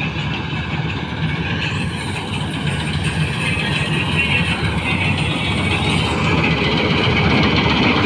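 Self-propelled combine harvester running under load as it cuts standing rice: a steady engine drone with the machinery's running noise, growing gradually louder as it comes closer.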